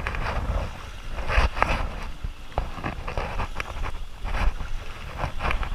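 Wind and handling noise rumbling on a body-worn camera, with irregular scuffs and rustles of someone moving over sand and dry brush.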